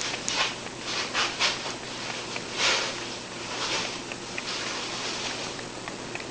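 A cat lapping milk, with small wet ticks of the tongue and several louder, irregular rustling noises about half a second long.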